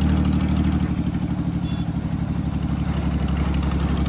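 Mahindra 265 DI tractor's three-cylinder diesel engine running steadily under way, with a low, even pulsing chug.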